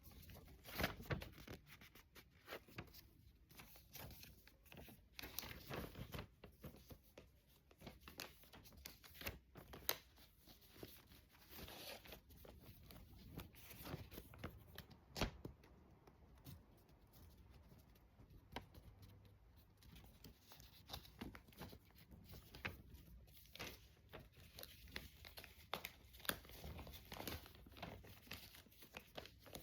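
A sheet of paper being handled, folded and creased by hand: irregular short rustles and crinkles throughout.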